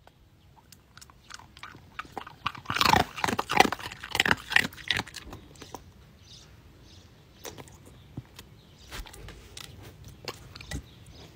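A dog chewing and crunching on something: a run of loud crunches between about two and a half and five seconds in, then scattered quieter chewing clicks.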